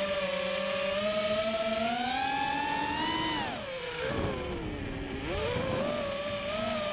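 FPV quadcopter's brushless motors and propellers whining, heard from the onboard camera. The pitch climbs steadily, falls sharply about three and a half seconds in as the throttle drops during a dive, with a low rushing noise, then rises again.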